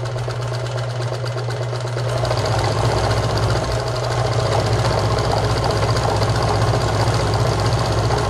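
Meister Class 76 electric sewing machine running and sewing a wide zigzag stitch: a steady motor hum with a rapid needle clatter, getting louder about two seconds in.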